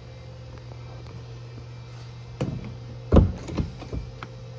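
A few knocks and thumps over a steady low hum. There is one at about two and a half seconds, the loudest just after three seconds, then three or four lighter knocks over the next second.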